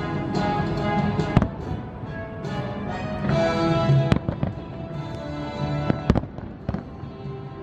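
Aerial fireworks shells bursting: several sharp bangs over music that plays throughout.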